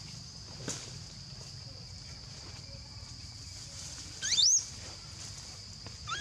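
Baby macaque giving a short squeal that rises sharply in pitch, about four seconds in, with another starting right at the end. A steady high-pitched background whine runs underneath.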